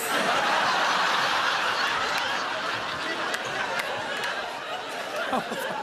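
Theatre audience laughing, breaking out all at once and slowly dying down.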